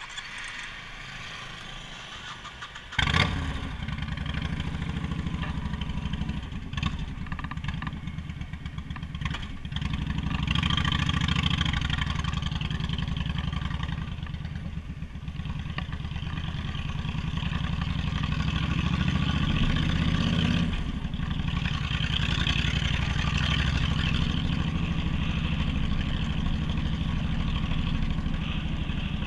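Motorcycle engine starting about three seconds in, then running and revving as the bike moves off and rides along the road.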